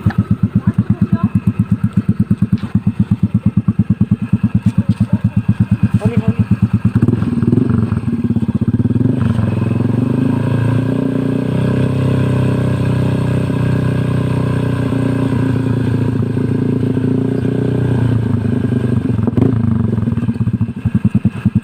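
Yamaha Mio i 125 scooter's single-cylinder four-stroke engine running through an open, muffler-less exhaust pipe. It idles with a loud, even pulsing beat, is revved up and held at higher revs from about seven seconds in, and drops back to the pulsing idle near the end.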